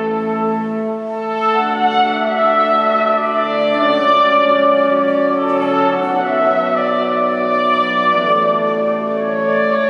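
Wind band playing slow, sustained chords with brass instruments to the fore, moving to a new chord every couple of seconds.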